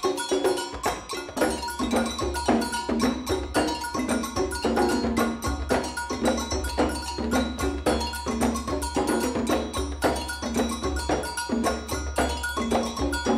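Percussion ensemble playing a fast, driving rhythm of many quick struck strokes, with pitched struck notes over them; a low sustained tone comes in about a second and a half in.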